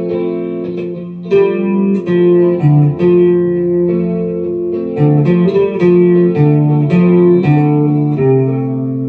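Ibanez Gio electric guitar through a Fender Mustang GTX100 amp on a '65 Twin model with sine chorus and mono tape echo. It plays picked chords and single notes that ring on and overlap, with a new note every half second to a second. The notes come thickest in the second half.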